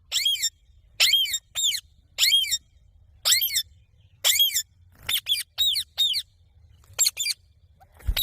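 Indian ringneck parrot giving a run of short, high-pitched screeching calls, about one a second, coming closer together in quick pairs and triplets near the end.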